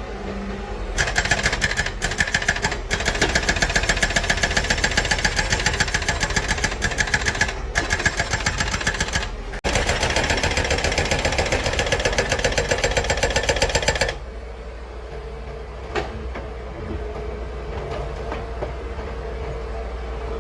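Heavy demolition machinery giving a loud, fast, steady metallic clatter that breaks off briefly a few times and stops about 14 seconds in. After that, only the excavator's diesel engine is left running steadily.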